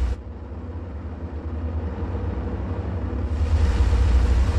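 Low, steady engine rumble of a heavy machine, a sound effect for an animated excavator. It grows louder, with a rising hiss, about three seconds in.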